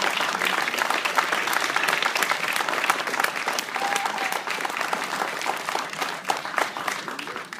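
Audience clapping, a dense continuous applause that starts to die down near the end.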